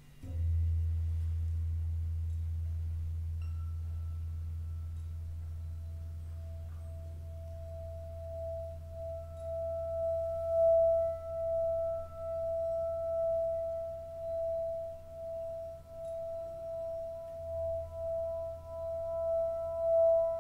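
Sustained ambient background music: a low drone sets in at the start and slowly fades, joined after a few seconds by a high, steadily held tone that grows louder and pulses gently. A couple of further high tones join near the end.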